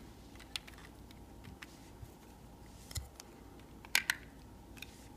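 Plastic LEGO bricks clicking faintly as a brick-built model car is handled, with a sharper double click about four seconds in as its roof plate is pressed back on.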